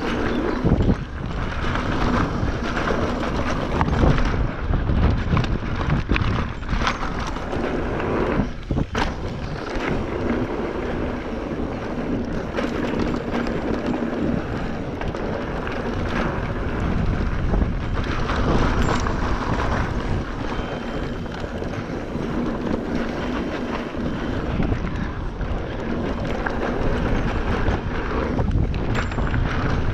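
Mountain bike descending a rough dirt trail: wind buffeting the camera microphone over a steady rumble of tyres and rattling bike parts, with scattered knocks from bumps.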